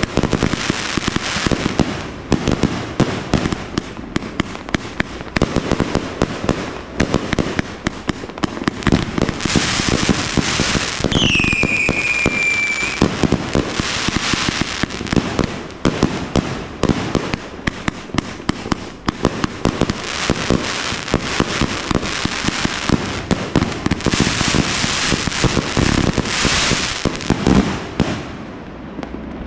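A 200-shot firework cake firing in rapid succession, a dense string of launch thumps and bursting, crackling shells. About eleven seconds in, a whistling shot glides down in pitch and holds for a moment.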